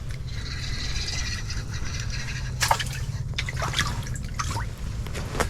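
Water splashing and dripping at an ice-fishing hole as a small fish is pulled up through it, in short irregular splashes over a steady low hum.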